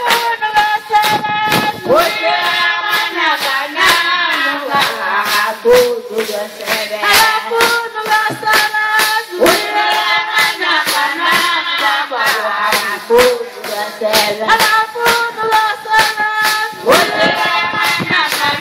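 Group of Zulu women singing a traditional song together, with a lead voice, over a steady beat of drums.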